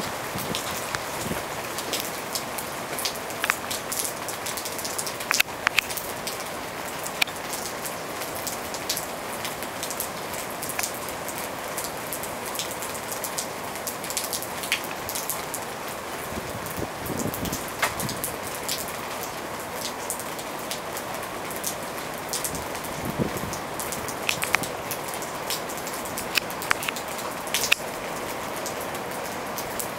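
Heavy rain falling steadily, with frequent sharp ticks of drops striking close by. A couple of dull low thumps come in the second half.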